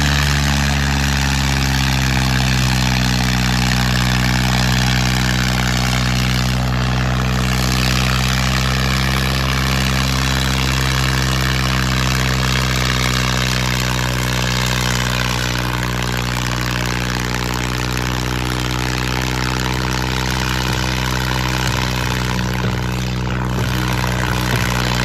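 Al-Ghazi farm tractor's diesel engine running steadily at high revs under heavy load as it drags a disc harrow through the soil.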